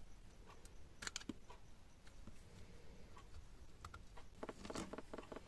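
Faint clicks and taps of small parts being handled, with a light tick about once a second. Near the end comes a quick run of small rattling clicks.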